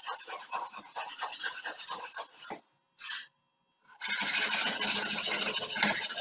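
Hand file scraping along the edge of a steel knife blade in back-and-forth strokes, about three a second. It breaks off for about a second and a half midway, then comes back as a denser, steadier scraping.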